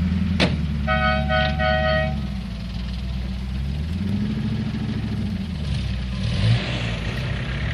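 A Land Rover 4x4's engine running steadily, with a two-tone vehicle horn giving three short beeps about a second in. The engine note rises around four seconds in.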